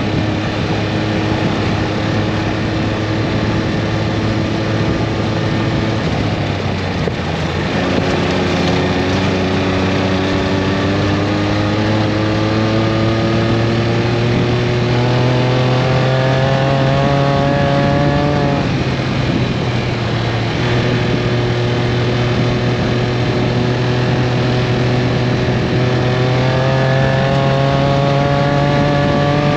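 Vehicle engine running under load while driving off-road. Its pitch holds steady, dips about seven seconds in, then climbs steadily as it speeds up, drops sharply about eighteen seconds in and climbs again.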